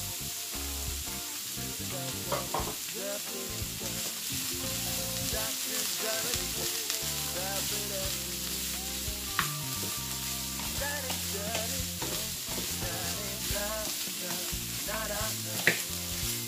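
Minced beef and chopped vegetables sizzling in a nonstick frying pan while a wooden spoon stirs and scrapes through them. A few sharp clacks of the spoon against the pan stand out, the loudest near the end.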